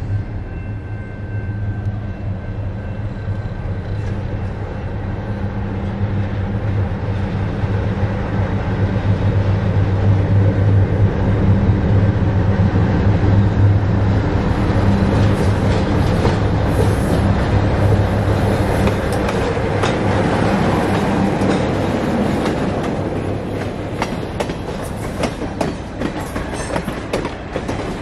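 A Lima LS-750 diesel switcher locomotive passing: its diesel engine's steady drone grows louder to a peak about halfway through, then fades. From a little past the middle, the wheels of the following cars clickety-clack over the rail joints as the train rolls by.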